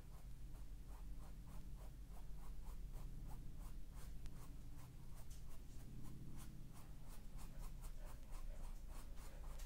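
Paintbrush strokes on canvas as a thin acrylic glaze is brushed in: a steady run of short, light scratching strokes, about three a second.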